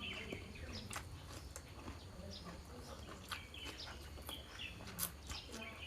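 Close-up eating sounds: repeated crunching and chewing clicks as food is bitten and chewed, with birds chirping in the background and a low steady hum underneath.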